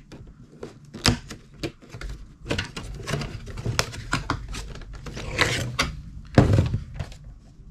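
Clear plastic Funko Pop protector being opened and the cardboard box slid out of it: a string of plastic clicks and scrapes, with a louder rubbing scrape about six and a half seconds in.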